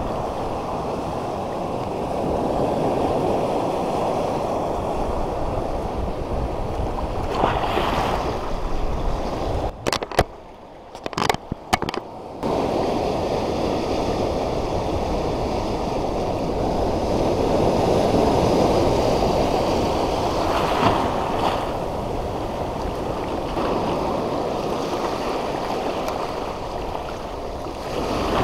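Surf breaking and washing over a shallow reef flat: a steady rush of water. About ten seconds in the rush drops away for a couple of seconds, broken by a few sharp clicks.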